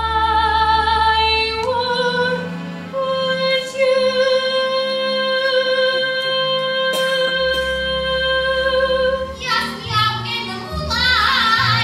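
A woman sings a long held note over instrumental accompaniment. The note steps up twice early on and is then held steady for about six seconds. Near the end the singing changes to a different female voice with a wide, wavering vibrato.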